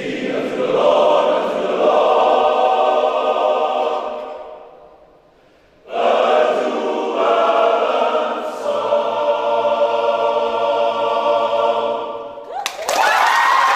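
Men's choir singing, breaking off into a brief near-silent pause in the middle before resuming. Near the end the singing fades out and the audience bursts into cheering and applause.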